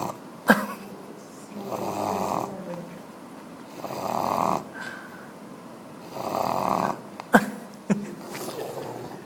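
A sleeper snoring, one noisy snore about every two seconds. Three short, sharp clicks stand out above the snores, one shortly after the start and two close together near the end, and they are the loudest sounds.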